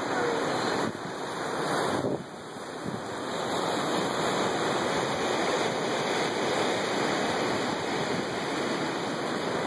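Ocean surf: a steady rush of waves washing in, with a brief lull about two seconds in.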